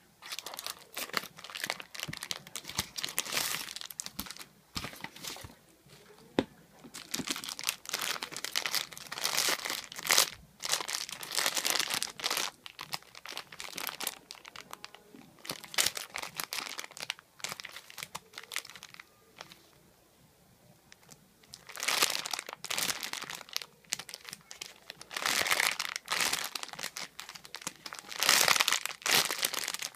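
Packaging being crinkled and torn open by hand, in irregular bursts with short pauses between handlings.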